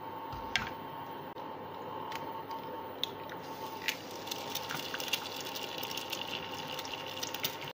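An egg frying in hot oil in a non-stick frying pan: sizzling with sharp pops and crackles that grow busier over the last few seconds, after a single knock about half a second in. A steady faint hum runs underneath.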